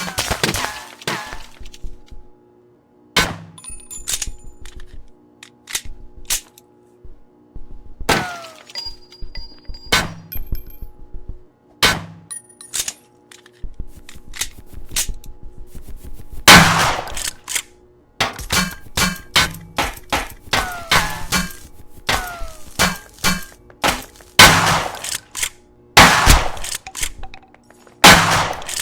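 Repeated sharp bangs, irregularly spaced, each with an echoing tail, the loudest cluster in the second half, over a steady low hum.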